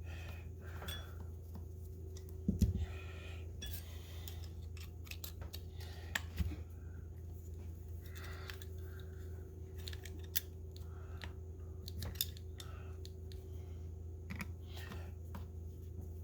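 Small metal clicks, taps and scrapes of brake caliper parts being handled and adjusted, with two louder knocks about two and a half and six seconds in, over a steady low hum.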